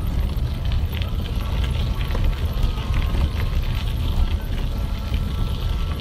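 Wind noise buffeting the microphone of a camera carried on a moving bicycle, with bicycle tyres crunching and rattling over a gravel lane.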